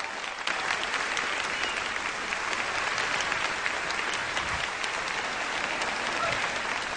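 Audience applauding steadily, many hands clapping to welcome a performer onto the stage.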